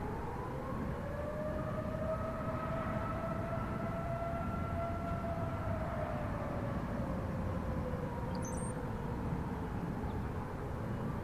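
Federal Signal Thunderbolt 1000 outdoor warning siren sounding the Attack signal: its wail climbs in pitch at the start, holds, sags slowly through the second half and begins to climb again near the end.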